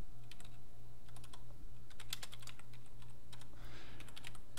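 Computer keyboard being typed on: a run of quick, irregular key clicks over a low steady hum.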